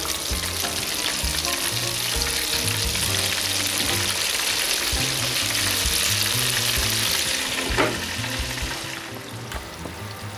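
Floured salt cod pieces deep-frying in hot oil at 170 °C in a De'Longhi electric deep fryer: a dense, steady sizzle of bubbling oil that eases off near the end.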